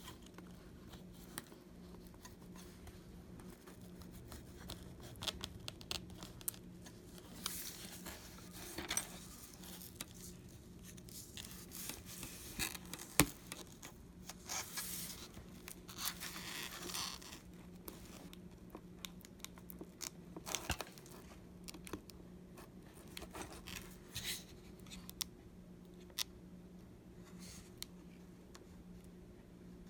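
Prying tools scraping, tearing and clicking at the edge of an iPad mini's glued LCD and leftover screen glass as it is worked loose, in short irregular bouts with a couple of sharp clicks. A faint steady low hum runs underneath.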